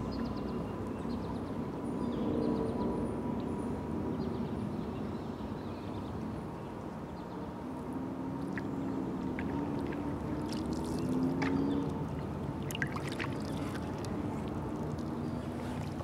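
Canoe being paddled on calm water: water swishing and dripping off wooden paddles over a steady low rumble, with a few light clicks and drips in the last few seconds.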